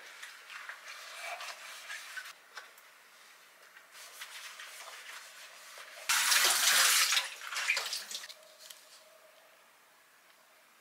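Washing up in a kitchen sink with rubber gloves: scrubbing, light knocks and splashes, then the tap running hard for about two seconds, about six seconds in.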